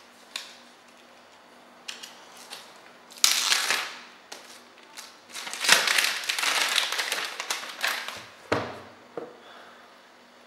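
The seal wrapping of a smartphone box being torn off and crinkled, in two stretches, a short one about three seconds in and a longer one in the middle, with light clicks and taps of the cardboard box being handled and a soft thump near the end.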